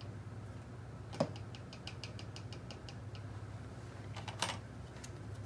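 Faint small clicks and ticks of a rubber piston seal, wet with brake fluid, being pressed by hand into the groove of an aluminium ATV brake caliper bore: a click about a second in, a quick run of light ticks, and a few more clicks near the end, over a steady low hum.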